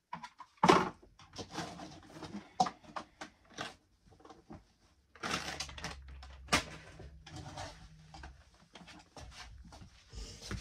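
Scattered knocks, clicks and rustling of household things being handled and moved about while tidying, with a sharp knock about half a second in and a longer stretch of rustling in the middle.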